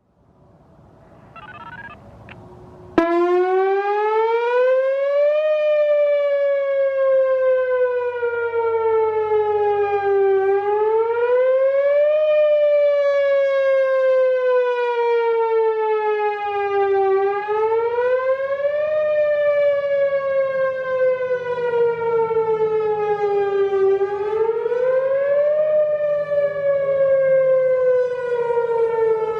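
Whelen WPS-4004 electronic outdoor warning siren sounding its whoop signal, starting abruptly about three seconds in. The tone rises over a couple of seconds, then slides slowly back down, and the cycle repeats about every seven seconds.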